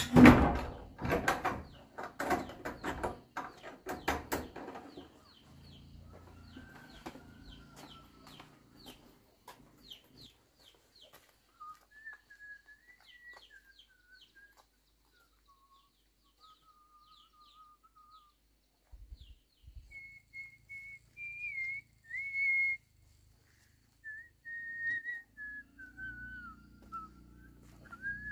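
A wooden door knocks and clatters for the first few seconds as it is handled and shut. After that, a person whistles a slow tune in long held notes, over faint rapid high chirping.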